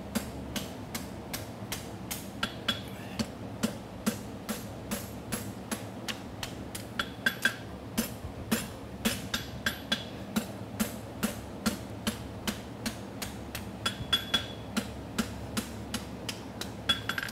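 Farrier's hand hammer striking a red-hot 3/4 by 1/2 inch steel horseshoe bar on a Scott Mighty Boy anvil, forging the heel in a steady rhythm of about two to three blows a second. Some blows carry a short metallic ring.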